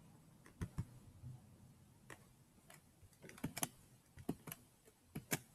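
Faint computer keyboard key presses: scattered, irregular clicks with a small cluster of quick presses about three and a half seconds in.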